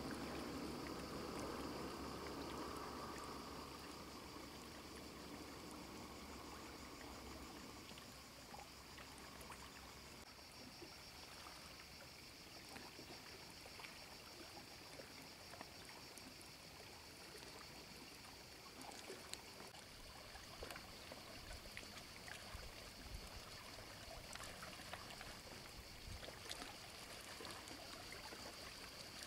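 Faint sound of shallow seawater lapping and trickling close by, louder at first and settling after several seconds into soft small splashes and drips. A steady high hiss runs underneath.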